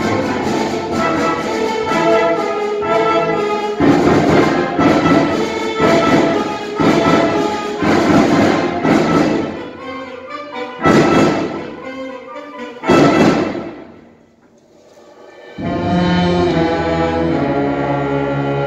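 High school concert band of brass, woodwinds and percussion playing a run of loud accented chords. In the second half come two short, loud full-band hits, a pause of about a second and a half, and then a softer held passage.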